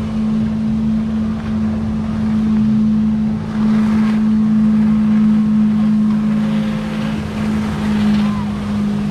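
Boat engine running at a steady, unchanging pitch, with a rushing noise of wind and water behind it.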